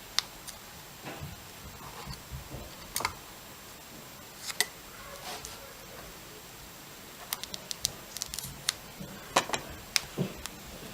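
Scattered small clicks, taps and crinkles at irregular times from hands handling a strip of electrical tape on a battery lead, busiest a little past the middle.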